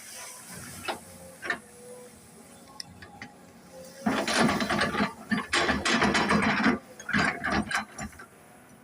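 An excavator at work, with metal clanking and scraping in dense bursts. The loudest stretch runs through the middle, after a couple of sharp clicks.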